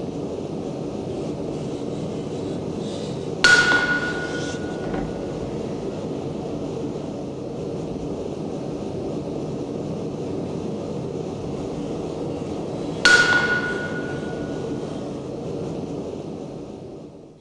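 Two hammer blows on metal about ten seconds apart, each leaving a high, single-pitched ring that fades over a second or so, over a steady low roar.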